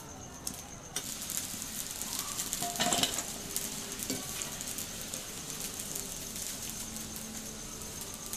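Raw potato strips frying in deep hot oil in a wok, the oil sizzling steadily from about a second in, with a louder burst of sizzling about three seconds in as more strips go into the oil.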